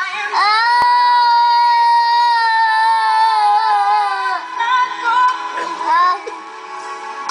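A toddler singing along to a music video: one long high held note for about four seconds, then shorter notes that slide up and break off.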